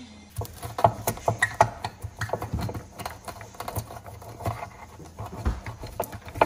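Wooden rolling pin crushing toasted whole spices (cinnamon, cardamom, cloves, black pepper) on a granite countertop, to grind them to a powder: a quick, irregular run of cracks and crunches.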